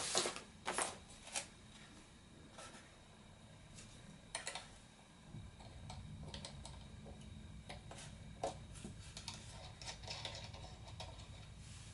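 Light, scattered clicks and rustles of hands handling small plastic and metal parts while fitting a propeller and its nut onto a quadcopter motor. The clicks are irregular, a little louder in the first second and a half, and a faint low hum comes in about five seconds in.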